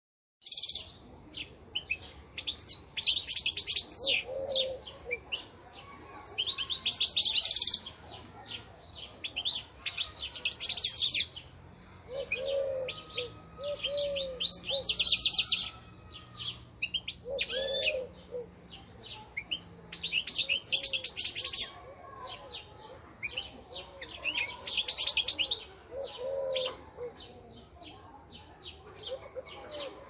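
Small caged songbirds singing: loud bursts of rapid, high twittering trills every few seconds, with softer, lower chirping notes in between.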